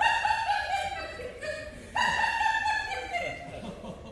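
A woman's voice through a stage microphone making two long, high-pitched wordless sounds about two seconds apart, each sliding slightly down in pitch.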